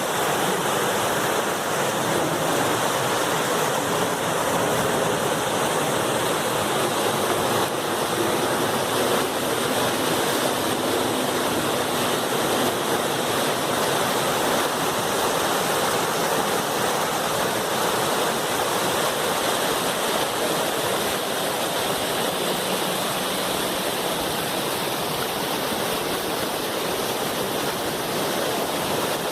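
Pirapitinga River's water rushing strongly over rocks: a loud, steady roar of fast-flowing water.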